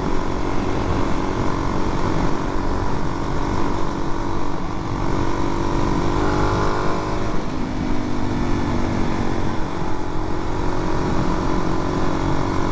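Suzuki DR-Z400's single-cylinder four-stroke engine running under way, over a dense low rush of wind and road noise. Its note climbs in pitch for a few seconds midway, then drops to a lower pitch and holds steady.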